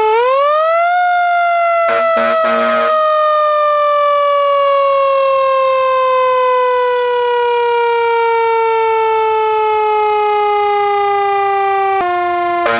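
Siren sounding one long wail: its pitch rises quickly in the first second, then falls slowly and steadily, dropping a step near the end. A short horn blast cuts in about two seconds in.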